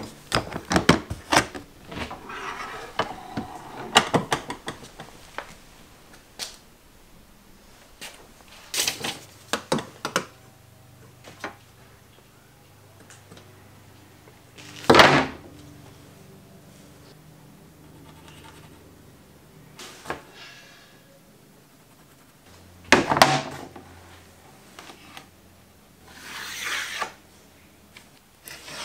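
Hands working a Milwaukee Packout plastic rolling tool chest and tools: scattered plastic clicks, knocks and sliding scrapes. A louder scrape comes about fifteen seconds in, and there are quieter stretches between.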